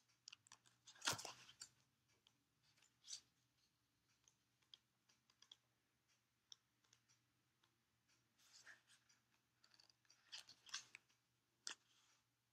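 Faint, scattered rustles and crinkles of a small paper booklet being handled and its pages turned, the loudest rustle about a second in and a busier run of them near the end.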